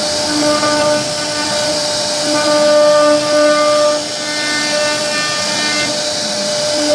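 CNC router spindle whining as its bit carves a scroll pattern into a wooden door panel, over a steady hiss of cutting. The pitched whine fades and returns every second or so as the cut changes.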